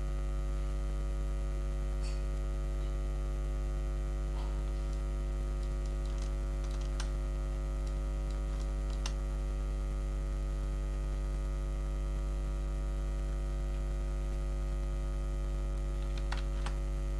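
Steady electrical hum, a low buzz with a ladder of evenly spaced overtones, unchanging throughout. A few faint computer keyboard and mouse clicks sound over it as values are typed in.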